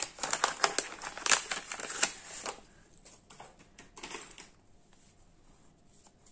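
Paper rustling and crinkling as a packed translucent paper envelope is opened and a stack of paper ephemera cards is pulled out and handled. A quick run of crackles in the first two and a half seconds, then a few softer rustles until it dies away after about four seconds.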